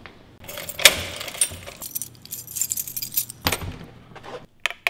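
A bunch of metal keys jangling as a key is put into a door lock, then a few sharp clicks near the end as the lock is turned.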